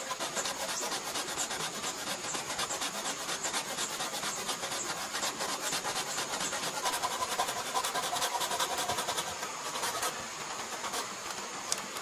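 A machete blade scraping along a bamboo pole in quick, even strokes, about three a second, which stop about ten seconds in.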